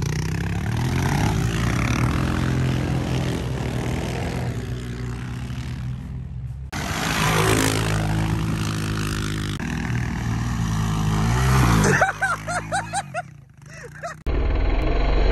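ATV engine revving up and down as it is ridden hard and spins its tyres in snow and ice. The sound breaks off suddenly about seven seconds in and again near the end, where a new stretch of engine running starts.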